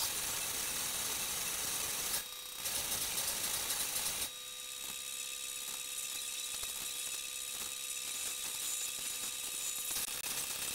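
Steady hiss of recording noise with a faint electrical hum and whine, louder for about the first four seconds and briefly dropping just after two seconds.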